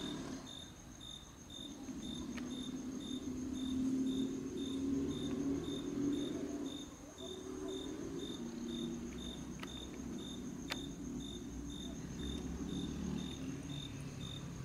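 Crickets chirping in steady, evenly repeated high pulses, about three a second, over a low indistinct murmur.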